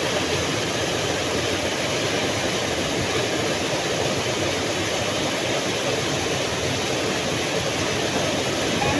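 Steady rushing of river water flowing over rocks, an even, unbroken noise.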